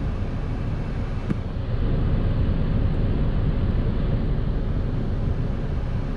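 Steady low rumble inside the cabin of a Mazda CX-5 with its engine running.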